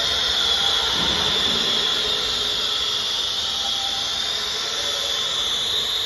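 AKM2030C CNC router's spindle running at high speed: a steady, loud, high whine with a hiss.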